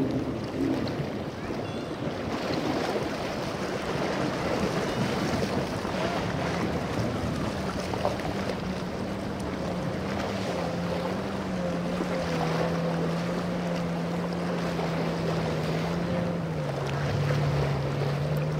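Triple Mercury 450R outboards on a center-console boat running slowly while towing another boat, a steady low engine hum that steps down slightly in pitch a couple of times. Waves wash and wind buffets the microphone throughout.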